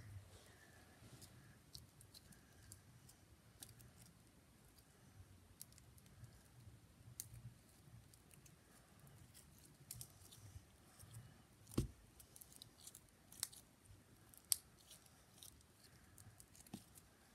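Faint sticky clicks and crackles of slime being squeezed and pulled between fingers, with a few louder knocks, the loudest about twelve seconds in.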